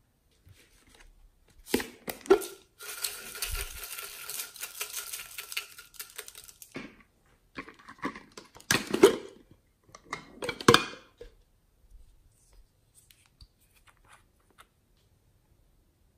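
Hands handling small plastic containers of slime toppings: a couple of sharp knocks, a few seconds of dense crackling, two louder short clatters, then light scattered ticks.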